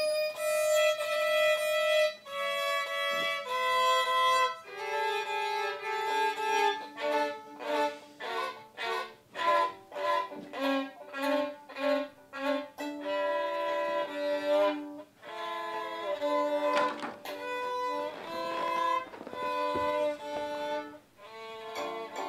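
Background music: a solo violin playing a melody, long held notes at first, then a run of quick short notes, then held notes again.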